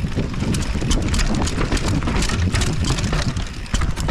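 Mountain bike riding down a rough dirt trail: knobby tyres rumbling over dirt and roots, the bike rattling and clattering in quick clicks over the bumps, with wind buffeting the microphone.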